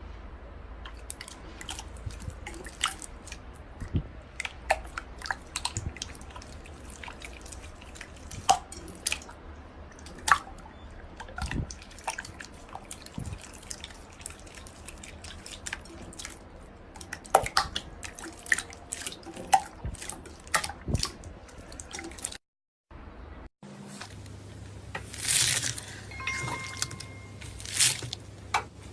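Slime being squeezed and stretched by hand, making many small wet clicks and pops. After a brief cut to silence about three-quarters of the way through, a few louder, longer squelches follow.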